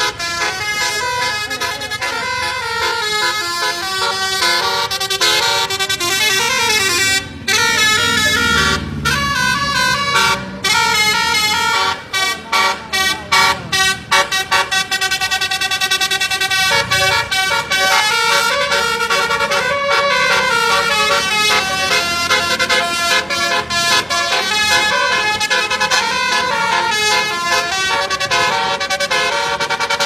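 A tour bus's multi-tone telolet horn playing a melodic tune of stepping notes, with a run of short staccato toots a little before the middle. The bus engine's low rumble swells underneath as it draws near.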